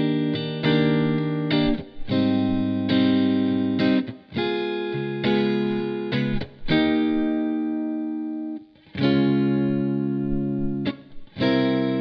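Electric guitar, a Fender Stratocaster played through a Marshall amp and cabinet, strumming chords that ring for a second or two each with short breaks between them. One longer chord in the middle rings out and fades before the next is struck.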